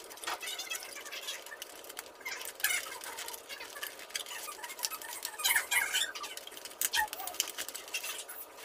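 Foam-board 3D puzzle pieces being pressed and slotted together by hand: scattered clicks and crackles with short squeaks, loudest about three seconds in and again between five and six seconds in.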